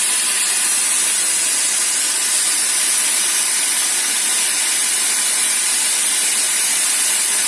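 CNC plasma cutter's torch cutting metal, its plasma arc giving a steady hiss with no break.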